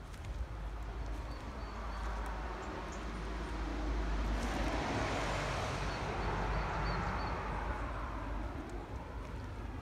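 A road vehicle passing by. Its tyre and engine noise swells over a few seconds and then fades away, over a steady low rumble.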